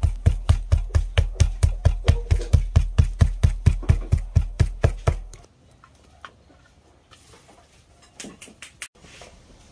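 Hands patting a ball of corn masa flat into a tortilla: quick, even slaps about five a second that stop about five seconds in, followed by a few faint small handling sounds.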